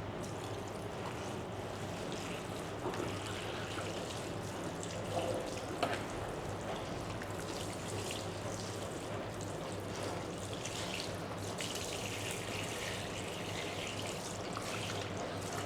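Water running steadily, a continuous trickle with a few faint clicks.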